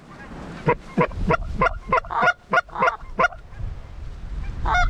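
Geese honking: a quick run of about ten short honks over two and a half seconds, then one more honk near the end.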